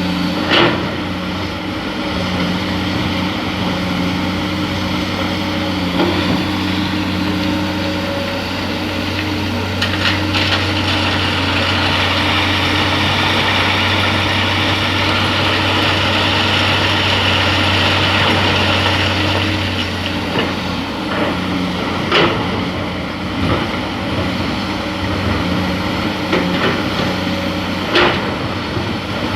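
Excavator's diesel engine running steadily under work, with a harder high-pitched whine for several seconds in the middle and a few sharp metal clanks.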